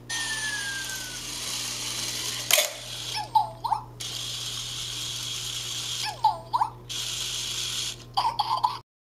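Amazing Zhus toy hamster's small electric motor whirring steadily as it rolls down its high-dive track and across the carpet, with a single knock about two and a half seconds in and short squeaky chirps three times. The sound cuts off suddenly near the end.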